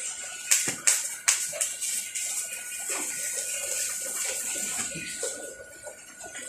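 Welding arc being struck with three sharp cracks, then sizzling steadily for about four seconds before dying away.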